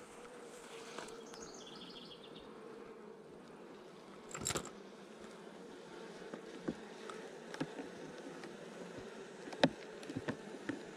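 Honey bees buzzing steadily around an open nuc box full of bee-covered frames. Wooden hive frames click and knock now and then as they are handled, with a louder knock about four and a half seconds in and the sharpest click near the end.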